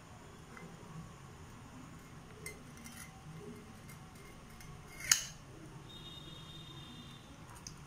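Cats feeding from a stainless-steel bowl: light clicks and clinks of the bowl as it is nudged, with one sharper metallic clink about five seconds in. A faint, thin, high squeak follows about a second later.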